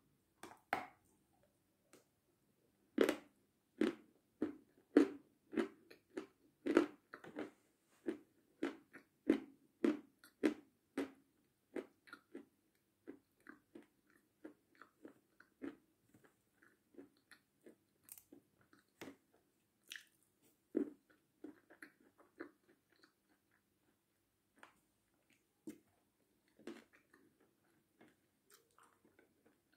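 Pieces of chalk bitten and chewed close to the microphone: dry, sharp crunches one or two a second, loudest through the first ten seconds and growing fainter and sparser after that.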